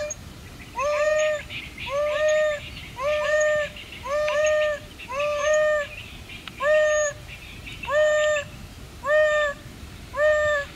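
African wild dog (painted wolf) giving its hoo contact call over and over, about one short hoot a second. Each hoot slides up, holds, then drops away at the end.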